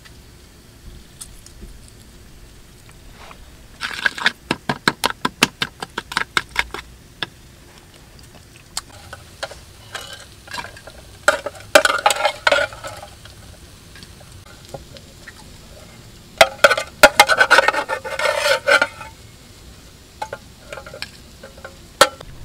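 Small metal tins and utensils clinking and clattering as food is handled: a quick run of sharp clicks, then two longer bursts of rattling in a metal tin.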